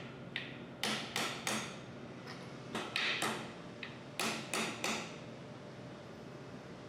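Hammer taps seating new expansion plugs over the bearings of a 400 series pump: sharp strikes in three quick groups of three or four, stopping about five seconds in.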